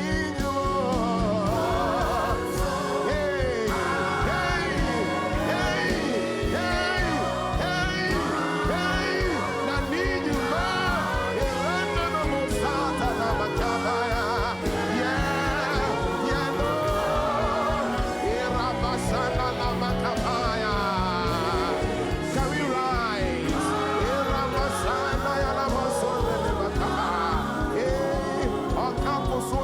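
Gospel worship music: a solo voice singing flowing, melismatic lines over sustained keyboard chords and a steady beat, with other voices joining in.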